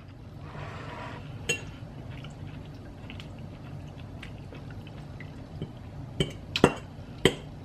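A fork clicking against a pasta bowl while scooping up a bite. There is one click about a second and a half in, then three sharper clinks close together near the end.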